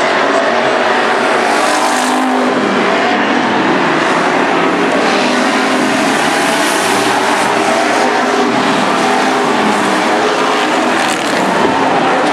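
Several dirt-track race cars' engines running loud together, their pitch rising and falling as they accelerate and lift around the oval.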